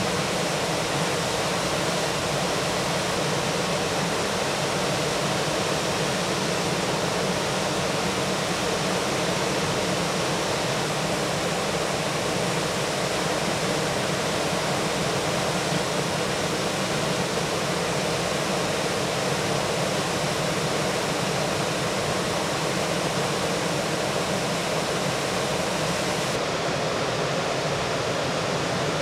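Whitewater of river falls rushing steadily.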